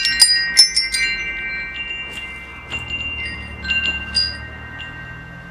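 Wind chimes ringing: a quick cluster of strikes at first, then scattered strikes further apart, each leaving a long, high, ringing tone.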